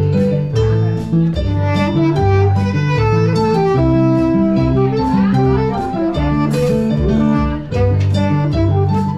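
Instrumental music with a walking bass line, melodic notes above it and a steady beat.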